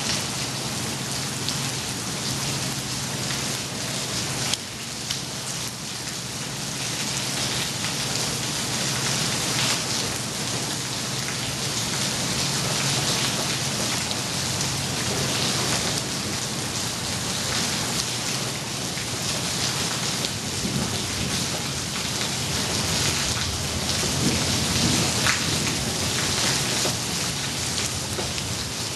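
Heavy rain pouring down in a thunderstorm, a steady dense hiss of drops on surfaces, with low rumbles of thunder in the second half.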